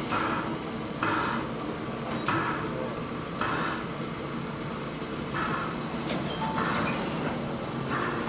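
Oil-fired steam locomotive giving off rhythmic steam hisses roughly once a second, over a steady low hum.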